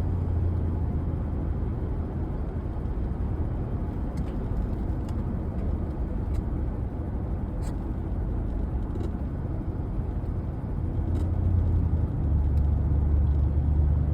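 Steady road and engine rumble heard from inside a moving vehicle's cabin, growing louder near the end.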